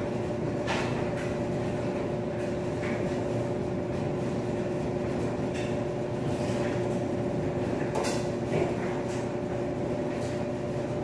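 Coin-operated laundry machines running: a steady motor hum with two constant tones over a low rumble, with a few faint clicks and knocks.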